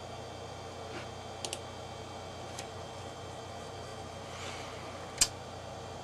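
Steady hum of a running beige Power Mac G3 computer, with a quick double click about a second and a half in, another faint click, and a sharper, louder click about five seconds in.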